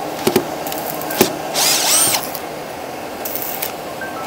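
Cordless electric screwdriver briefly spinning up and winding down with a rising and falling whine while backing out the tightly fastened casing screws of a small stick welder, after a few sharp clicks of the bit on the screws.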